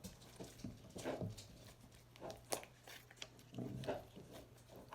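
Avocado slime being squished and poked by hand, giving irregular small sticky clicks and squelches.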